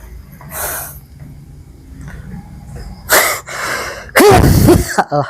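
A man sneezing: soft breaths, then two loud bursts, one about three seconds in and a longer one about four seconds in.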